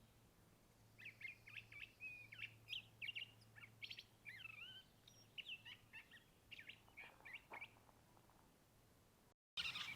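Faint bird calls: a quick series of short chirps and twittering notes, starting about a second in and stopping a couple of seconds before the end, with a brief burst of chirping again at the very end.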